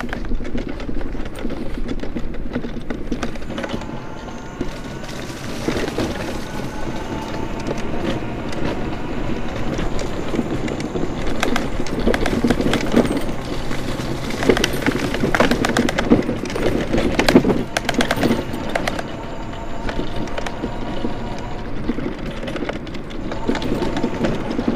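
Challenger X scooter riding along a paved trail: a steady rumble of wheels and wind with frequent clatters and knocks as it goes over bumps.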